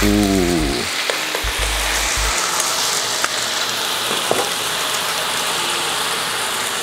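Marinated beef short ribs (LA galbi) sizzling steadily in a hot oiled pan as they sear, with a few light clicks of metal tongs against the pan. Background music with bass notes and a falling tone plays over the first couple of seconds.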